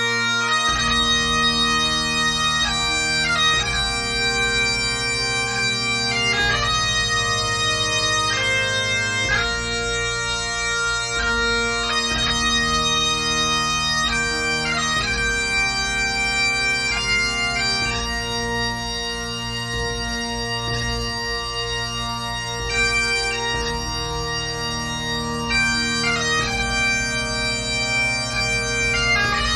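Great Highland bagpipe playing a tune: melody notes stepping up and down over the steady, continuous drones.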